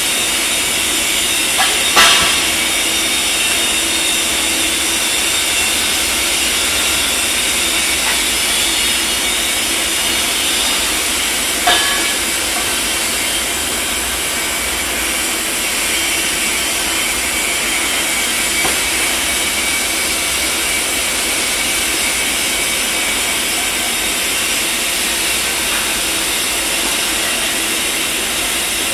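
Steady hiss of a metal fabrication shop's background machinery, with two sharp clicks, one about two seconds in and one near the middle.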